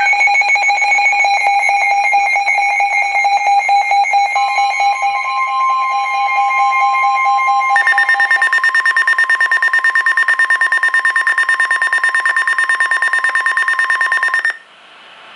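Emergency alert signal from a NOAA Weather Radio warning: an electronic alarm with fast, even pulsing. A steady 1050 Hz warning tone joins about four seconds in. The alarm shifts to a higher pitch about eight seconds in, and everything cuts off about a second before the end.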